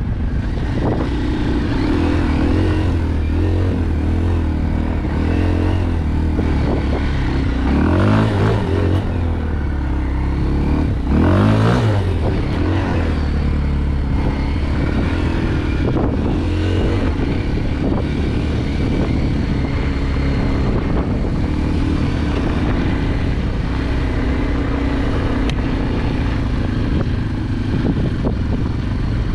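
Kawasaki KLX230 dirt bike's air-cooled single-cylinder four-stroke engine running under way, pitch rising and falling with the throttle. It revs hard twice, about eight and about eleven seconds in.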